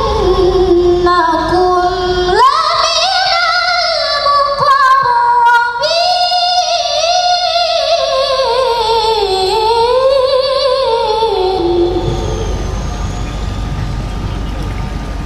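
A woman reciting the Quran in melodic tilawah style: long ornamented phrases that wind up and down in pitch. The voice stops about twelve seconds in, leaving a steady low rumble.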